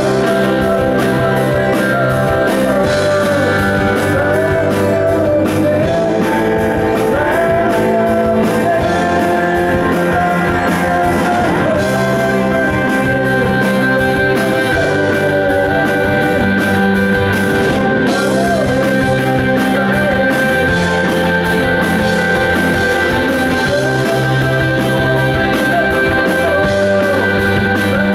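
Live rock band playing: electric guitars through amplifiers, with bass and drums, and a man singing into the vocal mic.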